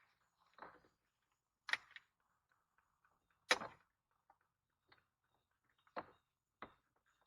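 A string of irregular knocks and clicks as the plastic door panel of a 2010 Infiniti QX56 is handled and fitted against the door, with a louder knock a little under two seconds in and the loudest about halfway through.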